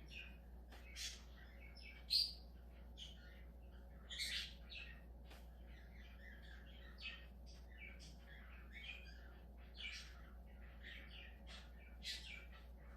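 Budgerigar chirping and chattering in a run of short, irregular calls, with one louder chirp about two seconds in.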